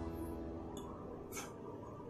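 Steel spoon stirring and scraping a damp flour batter mix in a stainless steel bowl, with two short sharp scrapes, the louder about one and a half seconds in. Faint background music fades away underneath.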